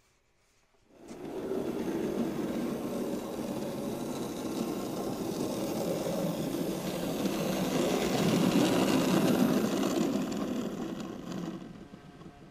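N-scale model trolley running along the layout track, its noise starting about a second in, growing louder as it comes close, then dying away near the end.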